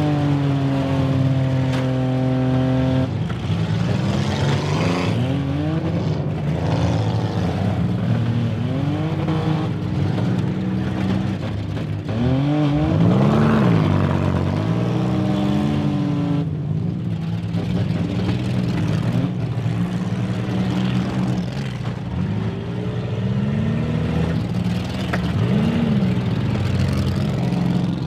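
Several demolition derby cars' engines running at once and revving up and down, their pitch rising and falling over a steady low drone. The loudest rev comes about halfway through.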